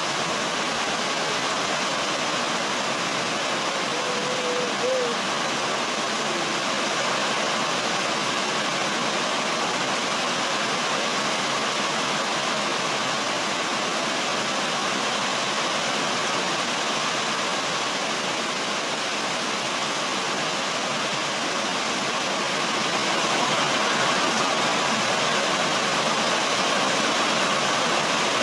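Heavy rain falling steadily, an even dense hiss that grows a little louder near the end. A brief wavering tone is heard about four seconds in.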